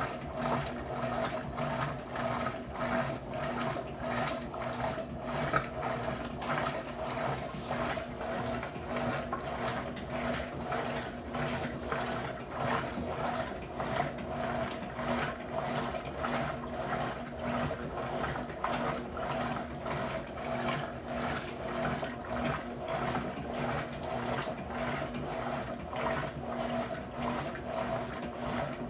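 Electrolux LT12F top-loading washing machine running: a steady motor hum with a regular mechanical pulsing that keeps up throughout.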